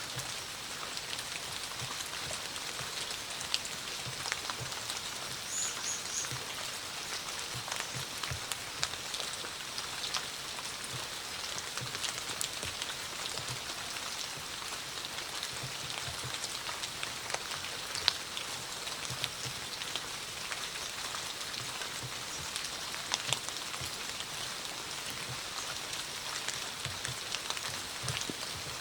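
Steady rain with a constant hiss, many individual drops ticking sharply and others landing as duller low taps on a nearby surface.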